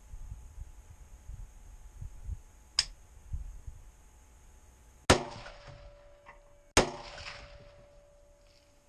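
Two gunshots about a second and a half apart, each with a short echoing ring-out, fired at a group of feral hogs. A single sharp click comes a couple of seconds before the first shot.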